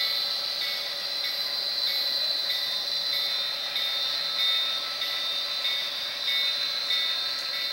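HO-scale model freight train rolling past with a steady whir from the cars' wheels on the track, mixed with the diesel sound of a Tsunami sound decoder playing through the locomotive's small speaker.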